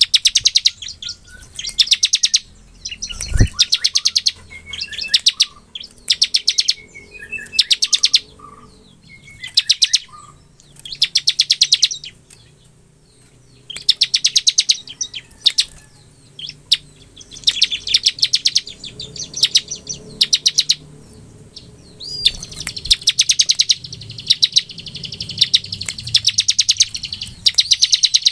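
Bar-winged prinia (ciblek) singing its fast 'ngebren' song: bursts of rapid, even clicking trills about a second long, repeated every second or two, with a few short chirps between. There is one low knock about three seconds in.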